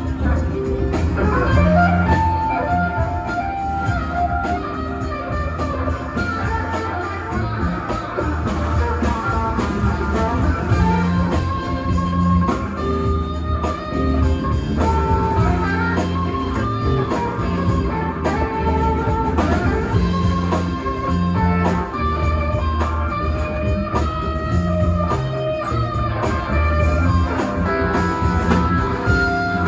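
Live rock band playing an instrumental jam: guitar lead lines winding over a steady bass line and drums, with no singing.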